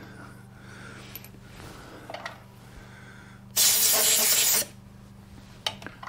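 Compressed-air blow gun fired in one hiss of about a second, blowing chips out of a freshly tapped hole in a nut held in a lathe chuck. A few faint clicks come before it, over a steady low hum.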